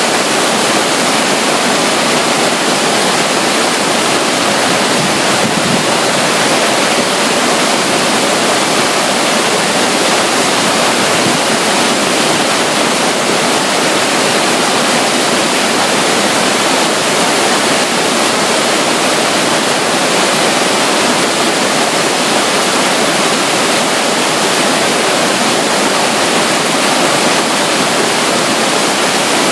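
Steady, unbroken rush of running water from a small water flow at the side of a river near a waterfall.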